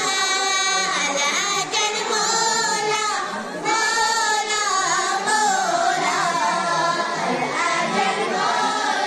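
Girls singing a manqabat, an Urdu devotional poem, together into microphones in long held and gliding notes.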